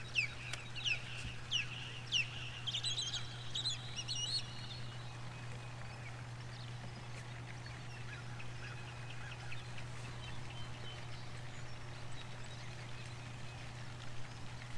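Birds calling: a quick run of short, sharp, high calls in the first few seconds, then scattered fainter calls, over a steady low hum.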